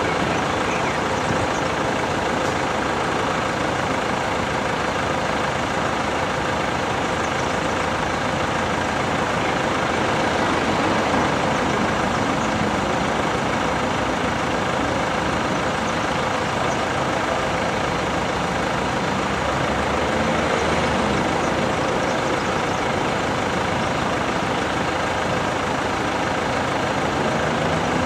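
Steady, even noise of road vehicles idling while they wait at the closed crossing, with no distinct events.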